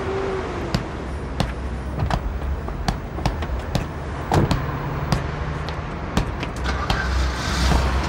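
Repeated sharp slaps or knocks, about one every two-thirds of a second, of a small ball being tossed and caught or bounced. A car engine runs steadily underneath.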